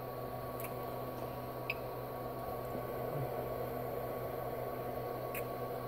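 Steady low machine hum and hiss with a faint high steady tone, broken by a few faint light ticks.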